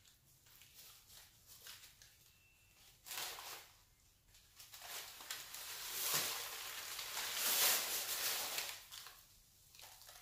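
Rustling and crinkling of a netted bag and paper packing being handled and emptied into a plastic tub. It comes in a short burst about three seconds in, then a longer, louder stretch that peaks shortly before the end.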